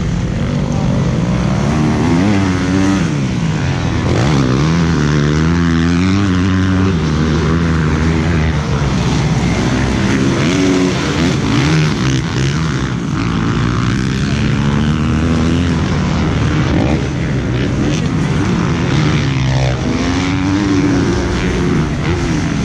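Several motocross dirt bikes' engines revving up and down as they ride the track, the pitch rising and falling again and again as they accelerate and shift, over a steady rushing noise.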